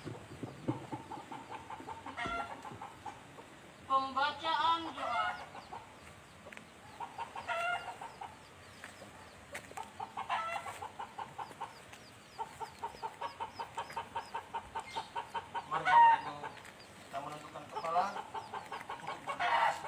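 Animal calls: short pitched calls at intervals, and a fast, even run of short repeated notes at about four a second in the middle.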